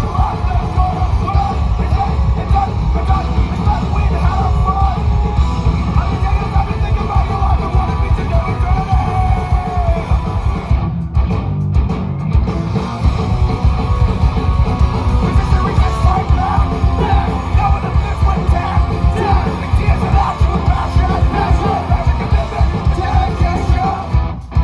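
Live punk rock band playing, with yelled lead vocals over guitars and drums.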